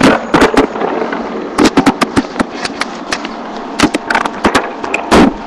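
Handling noise from a webcam being moved around: a quick, uneven run of loud knocks, clicks and rustles as the microphone is bumped and rubbed.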